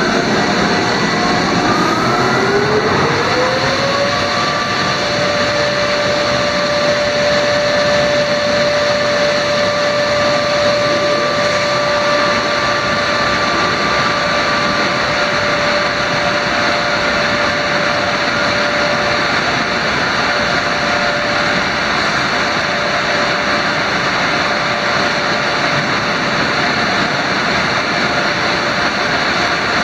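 Car wash dryer blowers running: several whines rise as the fan motors spin up over the first few seconds, then hold steady at full speed over a loud, continuous rush of air.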